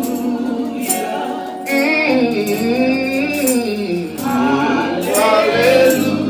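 Gospel worship singing with instruments behind it: a voice draws out a long, winding melodic run on the praise word, over held notes and a steady beat of short percussion hits.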